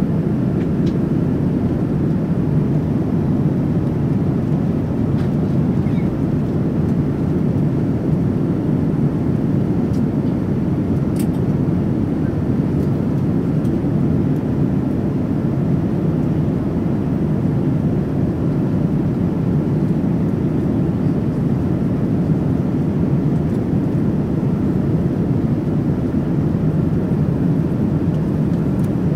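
Steady, deep cabin roar of a Boeing 787-9 airliner in cruise, the engine and airflow noise as heard inside the cabin, even throughout with a couple of faint ticks.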